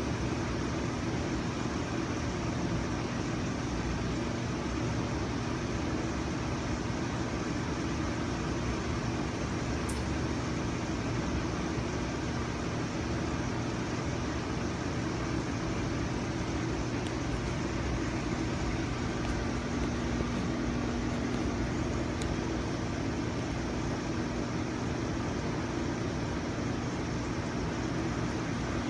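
A steady, unchanging mechanical hum with a low tone, and a few faint ticks.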